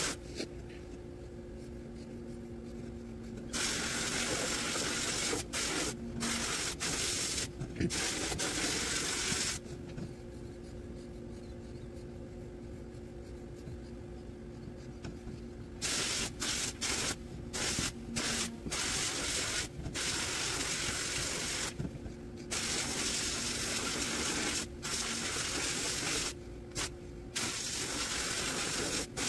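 Sandblast cabinet gun spraying abrasive against rusty steel mower reel parts, stripping the old rust and paint to bare metal. It is a loud hiss in long bursts, cut by short releases of the trigger and one pause of about six seconds in the middle, over a steady low hum.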